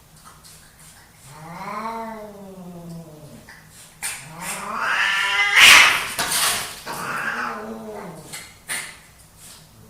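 Male domestic cats yowling in a fight. First comes a long, drawn-out yowl that rises and falls in pitch, then a rising yowl that breaks into a harsh, noisy outburst about six seconds in, the loudest moment. A shorter yowl follows.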